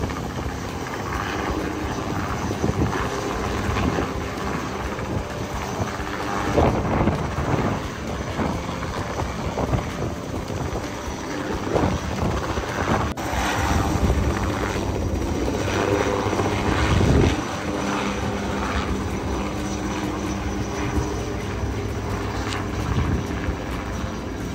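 A steady engine drone with a constant hum, and short louder rushing swells now and then.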